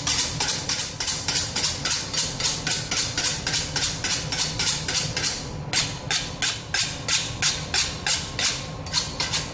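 Kitchen knife being honed on a sharpening steel: quick, even strokes of the blade scraping along the steel, about four a second.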